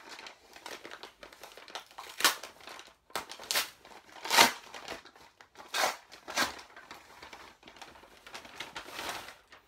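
Plastic packaging crinkling and rustling in a string of irregular bursts as it is pulled open by hand, the loudest about four and a half seconds in.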